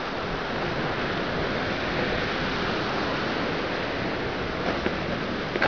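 Ocean surf washing against a lava-rock shoreline: a steady rush of waves, with a few short taps near the end.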